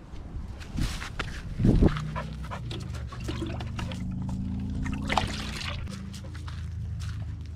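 Water sloshing and splashing as a cut-down plastic jug is dipped into a tub of water and lifted out, with a loud thump about two seconds in.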